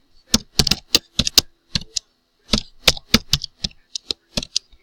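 Typing on a computer keyboard: irregular runs of sharp key clicks, with a short pause about halfway through.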